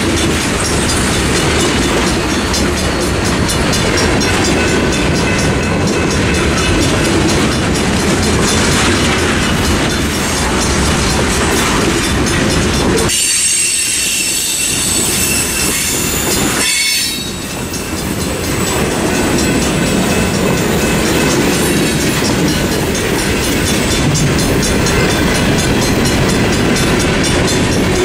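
Norfolk Southern mixed freight train's cars rolling through a grade crossing with a steady rumble and clickety-clack of wheels over the rails. The crossing bells ring in a fast, even rhythm throughout. About halfway through there is a brief high-pitched wheel squeal.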